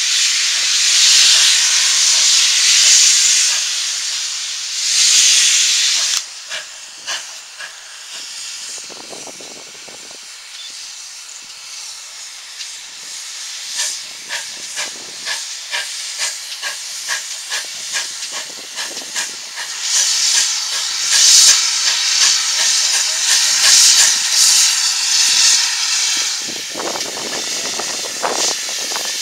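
GWR 5700 class pannier tank steam locomotive 7714 working a train. Loud steam hissing cuts off sharply about six seconds in, leaving the regular chuff of its exhaust beats. A strong hiss returns over the beats for the last third.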